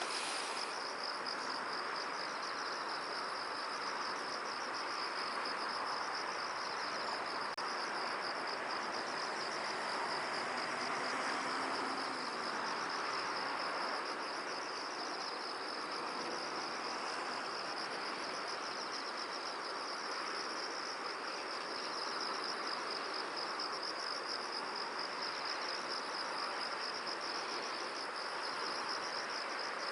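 A continuous high-pitched, rapidly pulsing trill from insects, over a steady soft rushing of wind through a field.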